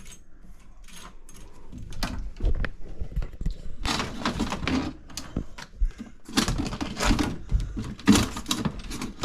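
Bursts of knocking, rattling and scraping from hands-on work: things being handled and moved about. The sounds grow busier from about two seconds in and are thickest near the end.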